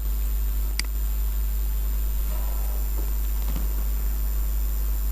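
Steady low electrical hum with a faint high whine over it, and a single sharp click a little under a second in.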